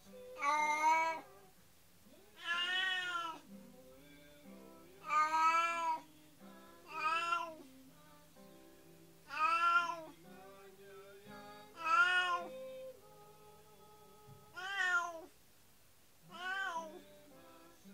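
Domestic cat meowing again and again: eight drawn-out meows, each under a second long, rising then falling in pitch, about every two seconds.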